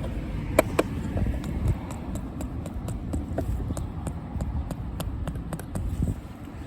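Rubber mallet striking a solar pathway light's plastic stake to drive it into the ground, a series of knocks, two near the start and a quicker run of them in the second half.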